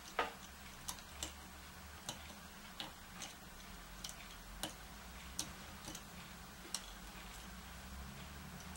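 Small screwdriver working tiny screws into a wooden board and a bulb-holder terminal: a series of faint, irregular clicks and ticks. The sharpest click comes just after the start.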